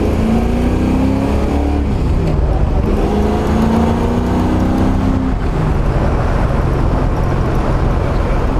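1969 AMX V8 engine pulling through the gears. The engine note climbs, drops at a shift about two seconds in, climbs again, then levels off after about five seconds.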